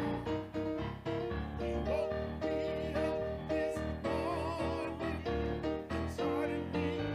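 Church worship music on piano or keyboard, playing held chords over a steady beat, with a singing voice with wide vibrato coming in about four seconds in.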